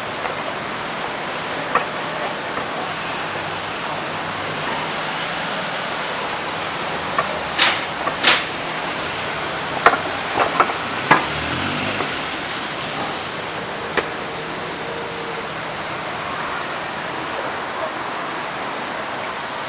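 Steady, even hiss with a handful of sharp clicks and knocks, clustered about halfway through and one more a few seconds later.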